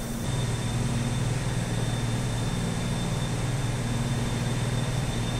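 Steady low drone of running industrial machinery, with a faint steady high whine above it. It gets a little louder just after the start.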